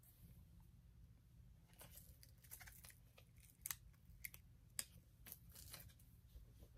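Faint clicking and crinkling of plastic press-on nails and a sheet of adhesive nail tabs being handled at the fingertips, with a few sharper clicks in the middle.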